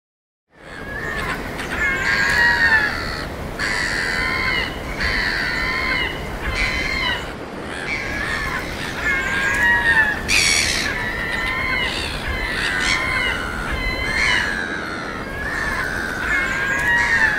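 A flock of birds squawking, with many harsh, overlapping calls over a steady low hiss; it fades in during the first second.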